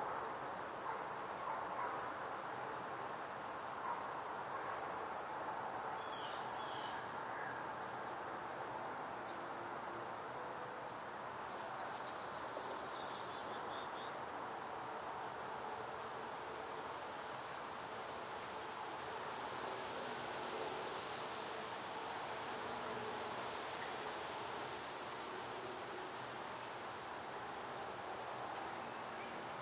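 Outdoor ambience: crickets trilling, one steady high-pitched tone, over a soft, even rushing background. A few short high chirps break in about six, twelve and twenty-three seconds in.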